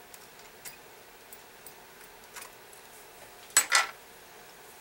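Light metallic clicks from handling a brass grandfather clock movement, then a sharp double metallic clink about three and a half seconds in, the loudest sound here.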